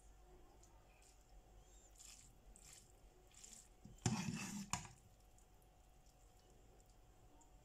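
Metal pasta server scraping and knocking against a frying pan as sauced spaghetti is lifted: one brief clatter about four seconds in that ends in a sharp click, with a few fainter soft sounds of the pasta being moved before it.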